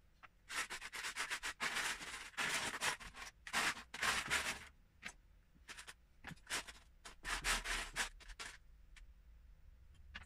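A hand rummaging through loose LEGO pieces in a plastic storage tub, the bricks clattering and rustling against each other and the tub walls in two spells of a few seconds each, with a short pause between.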